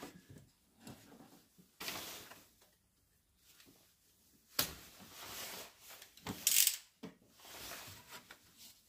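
Handling noises as parts are fitted by hand: a few short bursts of rustling and scraping, with a sharp click a little past halfway.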